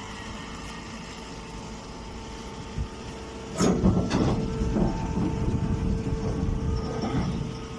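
Small automatic grass silage baler running with a steady mechanical hum. About halfway through, a loud burst of dense mechanical clatter from the machine at work sets in and lasts about four seconds.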